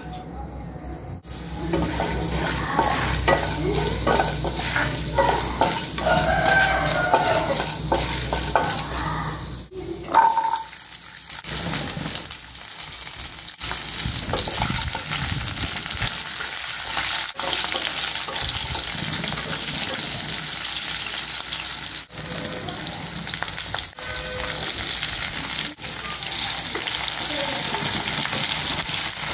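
Hot oil sizzling in a nonstick kadai as chana dal, then shallots, green chillies and tomatoes fry, with a wooden spatula stirring and scraping through them. The sizzle changes abruptly at several edit cuts.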